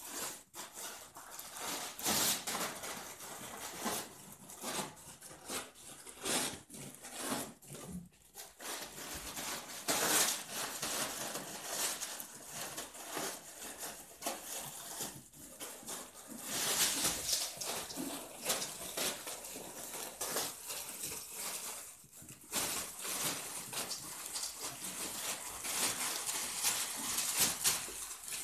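A dog ripping open paper gift wrapping with its mouth, the paper crinkling and tearing in irregular bursts.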